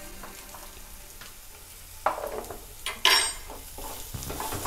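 Wooden spatula stirring and scraping thick onion-masala paste around a nonstick kadai as it fries with a light sizzle. It starts soft, and there are louder scrapes about two and three seconds in.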